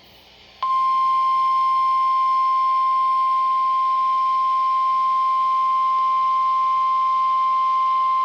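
NOAA Weather Radio warning alarm tone: one loud, steady, single-pitched tone of about 1050 Hz that starts about half a second in and holds unbroken, the signal that a severe thunderstorm warning is about to be read.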